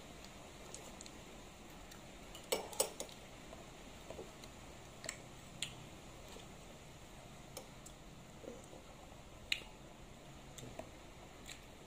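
A metal spoon clicking and scraping against an ice cream container in scattered sharp taps, the loudest pair about two and a half seconds in and another near the end, with quiet stretches between.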